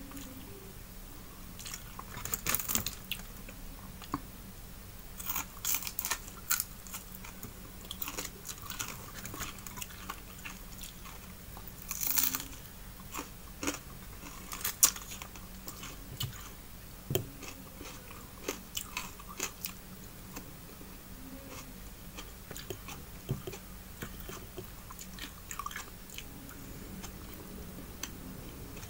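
Close-miked chewing and crunching of fried fish and raw onion and tomato salad eaten by hand, in irregular clusters of small crunches and mouth clicks with short pauses between.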